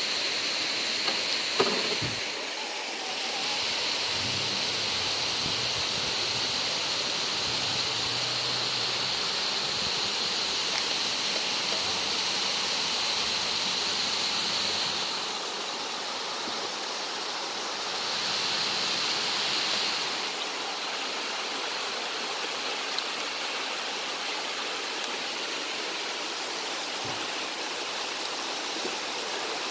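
Waterfall and stream rushing steadily.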